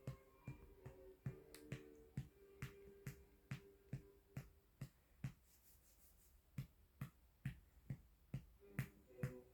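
A hand patting a baby's back to bring up a burp after a feed: soft, even pats, about two a second.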